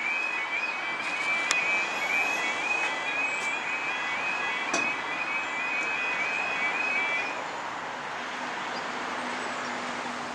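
Level crossing audible warning alarm, a rapidly repeating two-tone electronic yelp warning of an approaching train as the barriers lower. It stops about seven seconds in, leaving a steady background hiss.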